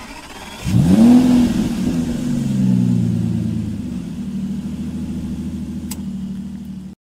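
Car engine revving up about a second in, then running steadily at a fast idle with its pitch sagging a little, before cutting off abruptly near the end.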